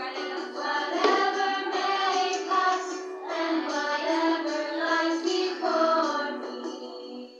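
Young children singing a simple song, with long held notes, the singing trailing off near the end.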